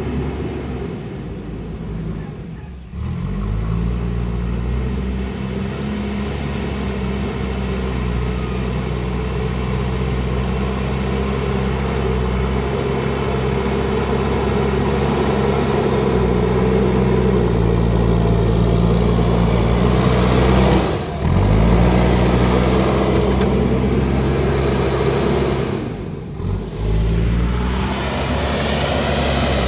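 Diesel engine of a JCB backhoe loader working steadily, its pitch shifting up and down with the load, broken by three brief dropouts.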